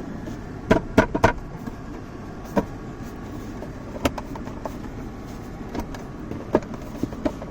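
Hard plastic interior trim, a center console panel, clicking and knocking against the surrounding console as it is worked into place: a quick cluster of knocks about a second in, then single clicks every second or two, over a steady low hum.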